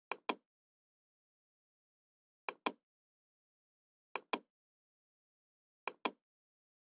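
Computer mouse clicking four times, each click a quick pair of sharp snaps as the button is pressed and released.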